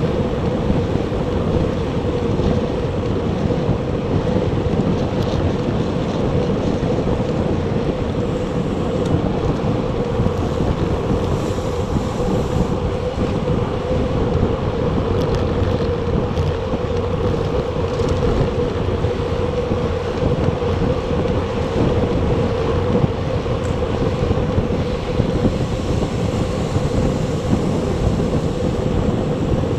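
Steady wind rush buffeting an action camera's microphone on a moving recumbent bicycle, with a steady hum underneath.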